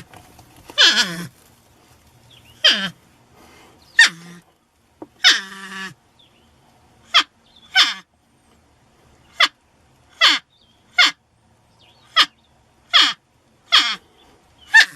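Porcupine calling: a few longer cries that fall in pitch in the first half, then a string of short, sharp squeaks roughly once a second.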